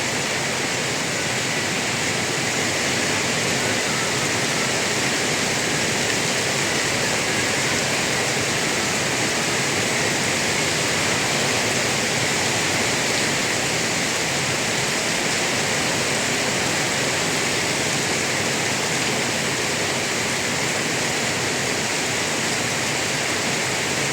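Rain falling steadily: a dense, even hiss that holds unchanged throughout.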